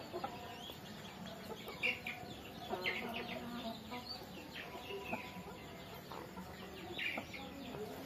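Chickens clucking: a few short, scattered calls over a quiet yard background.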